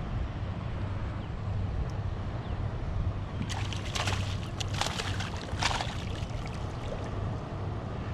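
Water sloshing and lapping against a kayak hull over a steady low rumble, with a cluster of splashy bursts in the middle.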